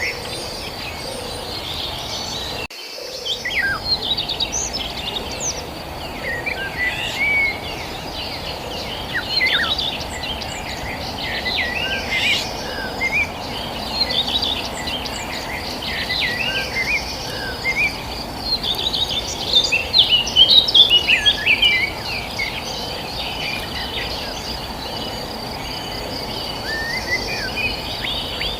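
Many small birds chirping and twittering all through, over a steady high insect trill and a constant low background rush. The sound drops out briefly about three seconds in.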